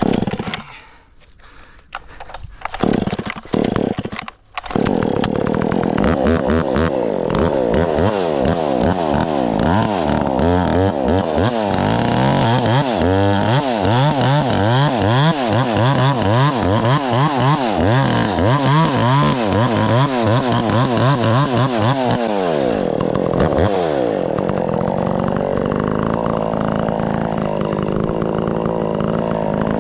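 Chainsaw starting up about five seconds in, then cutting into black locust, its engine speed rising and falling again and again under load. Near the end it drops to a lower, steadier speed.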